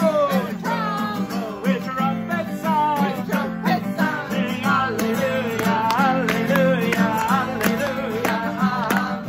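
Acoustic guitar strummed steadily while a group of voices sings along in gliding, pitched lines.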